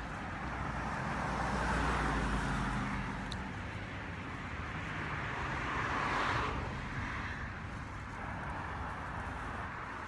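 Road traffic going by, with two louder passes, about two seconds and about six seconds in, that swell and fade.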